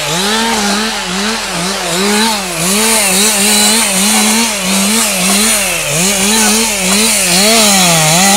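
Two-stroke chainsaw limbing a felled tree. The engine runs on without a break, its pitch rising and dipping about twice a second as it revs between cuts and bogs into each branch.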